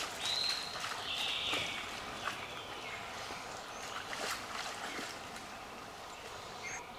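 Several people wading through a shallow stream, water sloshing and splashing around their legs with each step in irregular splashes.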